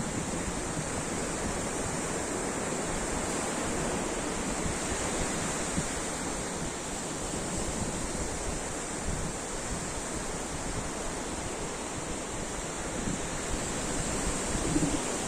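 Ocean surf: a steady wash of breaking waves, swelling slightly in loudness near the end.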